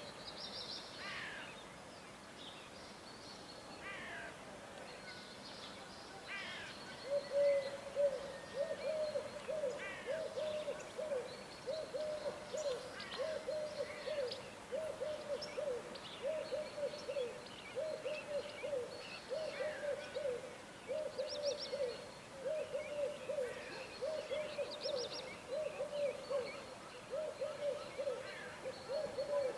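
Birds calling: a low hooting call repeated steadily about once a second from about seven seconds in, over scattered high chirps and trills from smaller birds.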